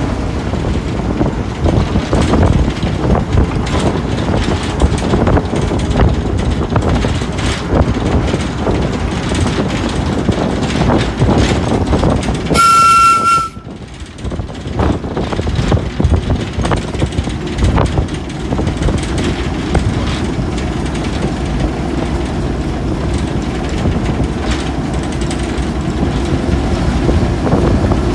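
Class 08 diesel shunter and its train on the move: a continuous rumble with wheels clicking over rail joints. About halfway through there is a short single-note horn blast.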